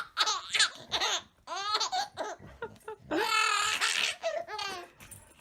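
A person laughing hard in a run of high-pitched bursts, loudest a little past the middle.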